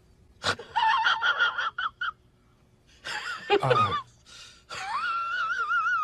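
Domestic cat yowling in three drawn-out, wavering complaints, the last one the longest, as a bare foot is pushed to its face.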